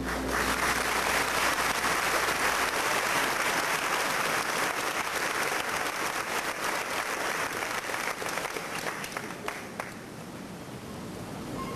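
Audience applauding, a dense patter of many hands clapping that dies away about ten seconds in.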